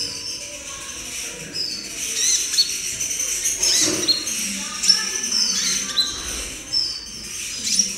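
Young sunbird (kolibri ninja) twittering: a run of short, high chirps and thin sliding notes, the halting song of a juvenile still learning to sing.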